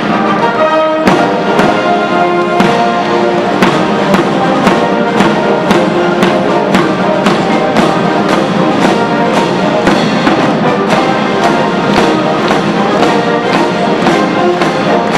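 Military brass band playing a march, brass melody over a steady drum beat of about two beats a second.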